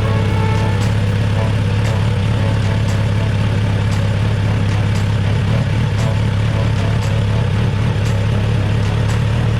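Kawasaki Z900RS's inline-four engine running at a steady, unchanging speed.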